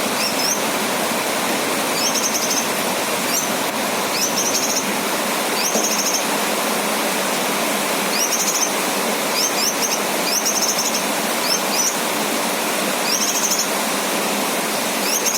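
Steady hiss of rain or spraying water, with a male cucak kinoy giving short, fast, high chirping trills again and again, about every one to two seconds.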